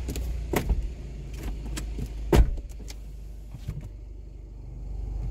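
A few sharp clicks and knocks inside a car cabin, the loudest about two and a half seconds in, over a low steady rumble.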